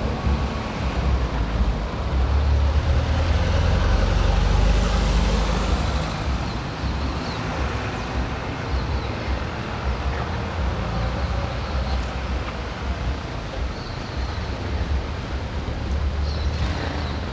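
City street traffic, with cars driving past over a low rumble. The loudest pass swells and fades between about two and six seconds in.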